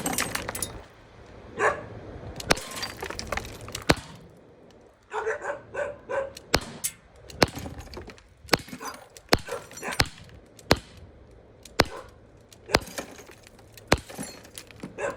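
About a dozen sharp shots from a CO2-powered Glock 19 steel-BB pistol, fired at irregular intervals, with glass breaking as the target is hit. A dog barks between the shots.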